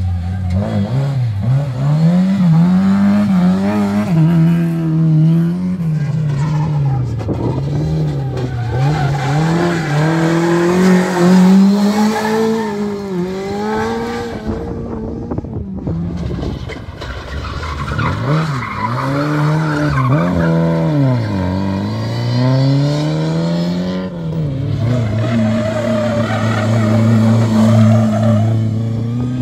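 Lada rally cars driven hard: the engine revs rise and fall again and again through gear changes and lift-offs. Tyres squeal as the cars slide on tarmac. The sound breaks off briefly about halfway, where one car's run gives way to another.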